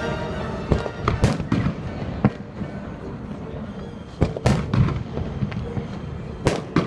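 Fireworks display bursting: a string of sharp bangs at uneven intervals, the loudest about a second in, near the middle and near the end, over a low rumble.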